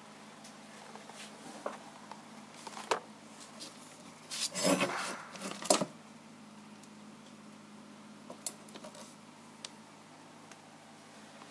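A stainless steel kitchen skimmer being handled, giving scattered light metallic clicks and a short cluster of clinks and rustling about halfway through, over a faint steady hum.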